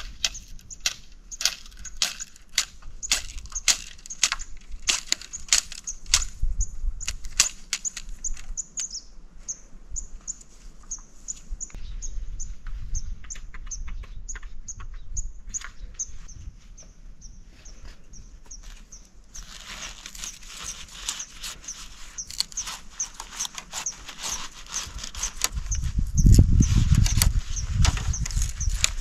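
A bird chirping over and over, a short high note repeated two or three times a second, with a quick run of sharp clicks in the first several seconds and a low rumble near the end.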